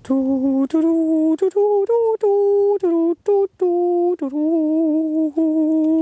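A single voice humming a slow, wordless melody in long held notes, stepping between a few pitches with short breaks between them.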